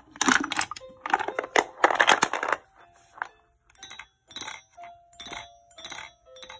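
Wooden blocks clattering and rattling as a block is pushed through the shape sorter's hole and drops in among the others. Then the toy's built-in xylophone is tapped: five single notes about half a second apart, stepping down in pitch.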